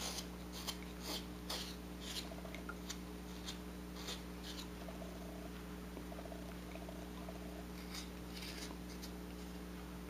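A whittling knife shaving small cuts off a carved wooden bird: short, faint scraping strokes, about two a second at first, then fewer, with another cluster near the end. A steady low hum runs underneath.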